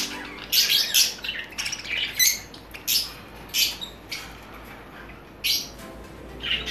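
Caged parakeets squawking: about ten short, shrill calls at uneven intervals.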